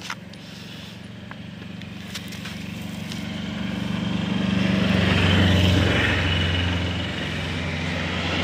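An engine running steadily with a low hum, growing louder over the first five seconds or so as it draws closer, then easing off slightly.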